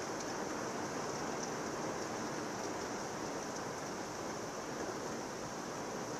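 Heavy thunderstorm downpour: rain falling steadily in a dense, even rush of sound.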